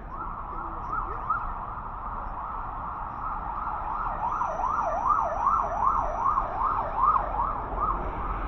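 Emergency vehicle siren sounding in city traffic, its pitch sweeping up and down. It is faint and slow at first, then from about four seconds in turns faster and louder, about two sweeps a second, over a steady rumble of street traffic.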